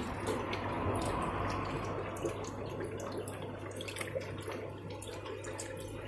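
Dry ice bubbling in water: a steady fizzing churn with many small pops. A low steady hum runs underneath.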